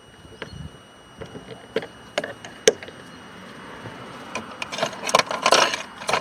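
Scattered sharp clicks and taps of tools and small parts being handled on a car door panel, one click about three seconds in standing out, then a denser run of scraping rattles in the last couple of seconds.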